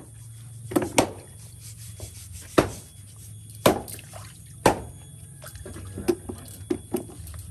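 Water splashing and dripping as cut pieces are washed by hand in a basin, with several sharp knocks, the smaller later ones from washed pieces dropped into a plastic bucket.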